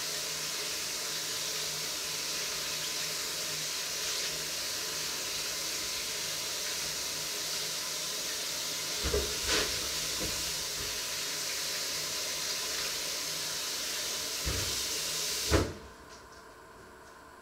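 A steady hiss at the stove, with a few knocks of cookware about nine and fourteen seconds in. Near the end the hiss cuts off abruptly with a clunk.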